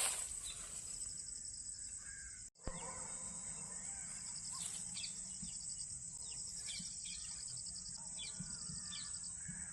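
Outdoor ambience of insects trilling steadily at a high pitch, with short bird chirps scattered through it. The sound cuts out for a moment about two and a half seconds in.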